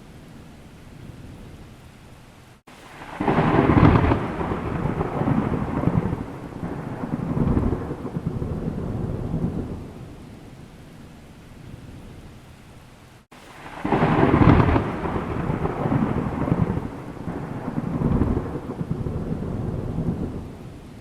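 Thunder over steady rain: two thunderclaps about ten seconds apart, each cracking in suddenly and rolling on in waves of rumble for about seven seconds before fading back to the rain.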